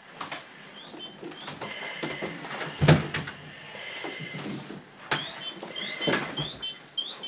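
Firefighters moving in full gear during a search drill: knocks and thuds from bodies and equipment, the loudest about three seconds in and more near five and six seconds. Under them run high electronic tones that come and go, and from about five seconds in a short rising chirp repeats about twice a second.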